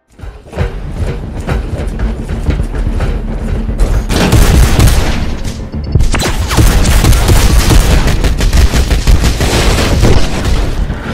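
Film battle sound design: dense, rapid gunfire and booms over music. It starts suddenly, grows louder about four seconds in, and breaks off briefly around six seconds before carrying on.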